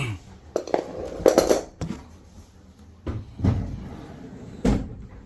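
Washer pedestal drawer being worked on its newly fitted slide: a series of knocks and rattling clatters, with a cluster about a second in and single thumps later.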